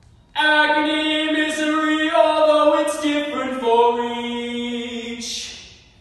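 A man singing a wordless 'ah' in long held notes. It begins a moment in, steps down in pitch about halfway through and fades out near the end, mimicking a maiden's wordless song.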